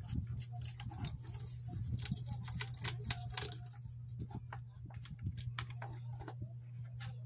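Irregular small clicks and taps as a screwdriver works the screws of an amplifier board's aluminium heat sink and the metal parts are handled, over a steady low hum.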